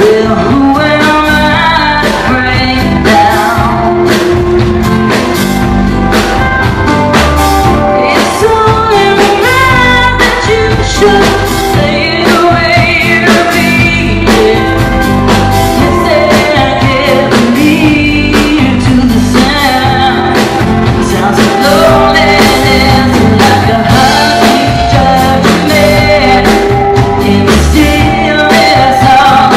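Live band playing: a woman singing lead over strummed acoustic guitar, ukulele and a drum kit keeping a steady beat.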